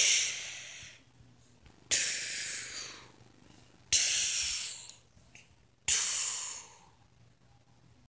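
A person's breathy hissing, four times about two seconds apart; each starts suddenly and fades out over about a second.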